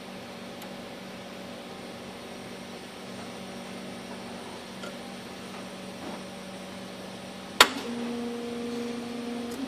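Hasselblad Flextight 949 scanner with its batch slide feeder changing slides: a steady mechanical hum, then one sharp click near the end, after which a different, slightly louder motor tone starts.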